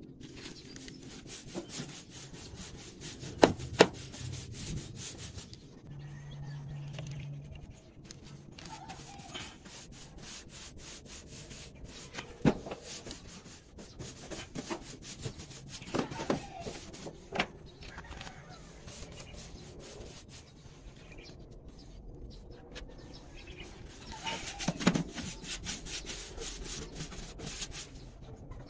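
A paintbrush scrubbing liquid rust converter onto a corrugated galvanized iron roof sheet: the bristles rasp over the ribbed metal in quick repeated strokes, with a few sharp knocks scattered through.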